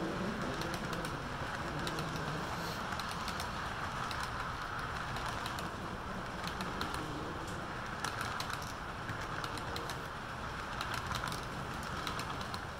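Model freight train cars rolling past on the track: a steady rolling hum from the wheels, with many quick, irregular clicks as the wheels cross the rail joints.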